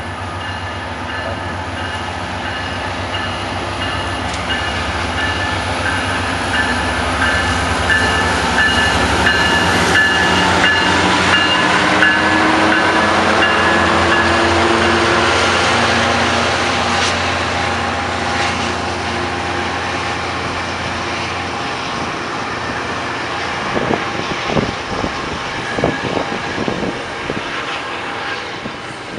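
A train passing through the station. It grows to its loudest about halfway through, eases off, then wheels click over rail joints near the end.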